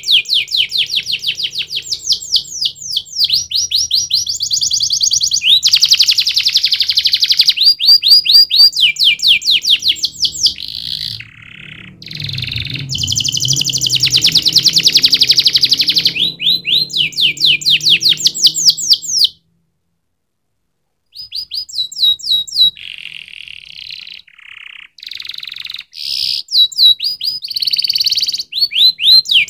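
Domestic canary singing: a long song of rapid trills, each made of many quick repeated notes, switching from one trill to the next every few seconds. The song breaks off completely for about a second and a half two-thirds of the way through.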